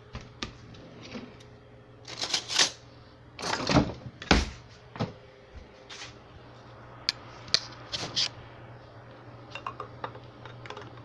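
Cup and utensils being handled: scattered light clicks and knocks, with a few louder clattering rustles between about two and four and a half seconds in, over a low steady hum.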